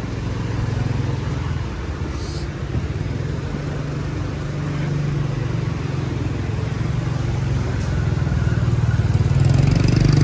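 Street traffic: car and motorcycle engines running close by, a steady low rumble that grows louder near the end.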